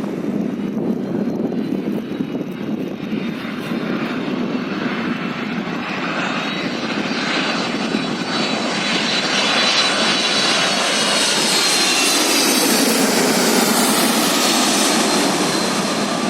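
A Boeing 767-316ER's twin jet engines whining on landing approach, growing louder as the airliner closes in. The engine whine slides down in pitch as it passes, near the end.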